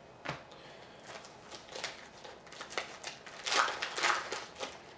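A hockey card pack being opened and its cards handled: scattered small clicks and rustles of the wrapper and cards, with a louder crinkling rustle about three and a half seconds in.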